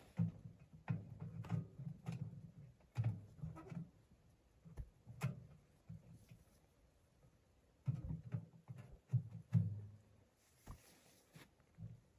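Irregular rustling and soft knocks from someone moving about inside a tarp tent and shifting a sleeping bag, in two spells with a lull in the middle and a sharp click in between.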